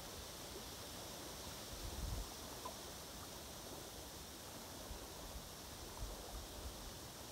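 Faint steady background hiss, with a few soft low bumps about two seconds in and again around six seconds.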